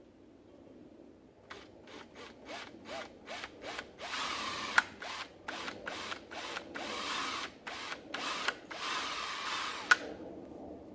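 Power drill boring a pilot hole for a mounting screw: a string of short trigger bursts, then longer steady runs from about four seconds in, stopping shortly before the end.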